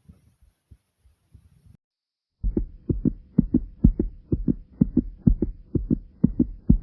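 Fast pounding heartbeat, each beat a low lub-dub pair. It starts faint, stops briefly, then comes back loud at a quick, even rate of roughly two beats a second, with a faint steady hum underneath.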